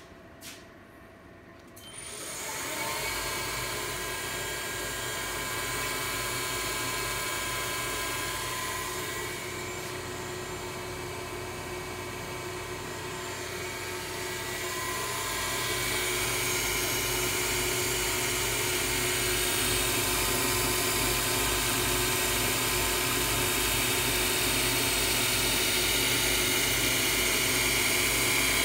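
Spindle of a Grizzly G0704 mill converted to CNC, belt-driven by a 1 hp two-pole Leeson motor through a six-rib J-section belt, starting about two seconds in and running with a steady whine. It grows louder about halfway through, and runs smooth without rattles.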